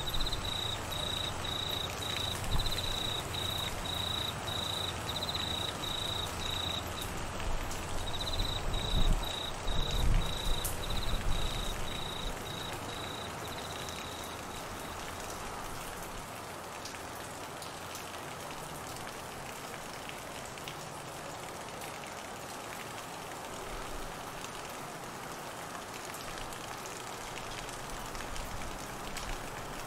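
Steady rain falling, with crickets calling in a fast pulsed trill that stops about halfway. A low rumble swells and dies away over roughly the first twelve seconds.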